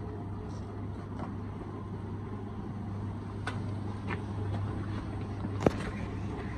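Steady low mechanical hum of a running machine, with a few faint clicks and one sharp knock about five and a half seconds in.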